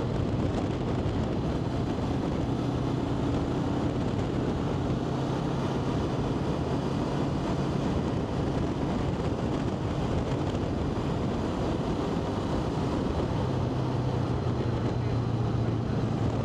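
Vehicle engine running steadily on the move, its low hum buried under loud, continuous wind rush over the microphone.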